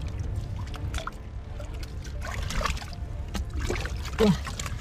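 Hands working in shallow muddy water: scattered wet splashes, slaps and squelches as they grope through the mud, with a brief louder sound near the end.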